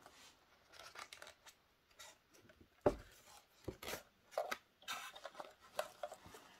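Thin clear plastic wrap rustling and crinkling in faint, scattered crackles as a model railway coach is slid out of its foam box insert, with a light knock about three seconds in.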